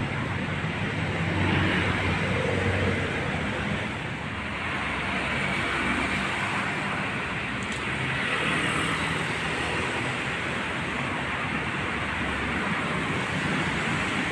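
Steady road traffic: engines and tyres of passing cars and vans, with a low engine hum underneath. It swells as vehicles go by, a couple of seconds in and again about eight seconds in.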